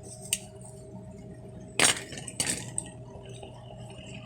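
Small hard objects clinking and clattering as they are picked up and dropped while a workbench is cleared: a sharp click early on, a louder clatter a little under two seconds in, and a couple of lighter knocks after it. A steady low hum runs underneath.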